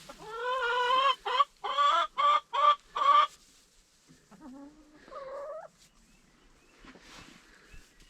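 Chickens clucking and calling: one loud drawn-out call, then a quick run of about five short loud calls, then softer clucks.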